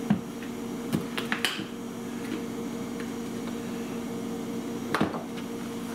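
Sharp clicks and knocks of a kitchen utensil against a container while measuring out brown sugar: several in the first second and a half and one more about five seconds in, over a steady low hum.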